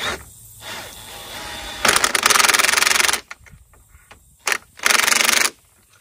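DeWalt cordless impact driver driving a 13 mm lag screw into a wooden gate post. It hammers in a rapid rattle for about a second, gives a short blip, then a final half-second burst.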